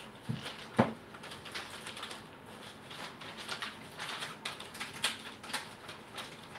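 Scattered light clicks and taps at an irregular pace, with one louder knock about a second in.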